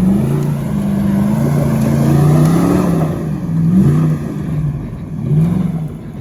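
Car engine revving hard under load, its pitch climbing, holding, then dipping and rising twice before easing off near the end.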